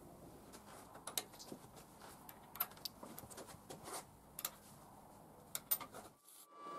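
Scattered light clicks and taps of steel parts being handled on a steel welding table, dropping out shortly before the end.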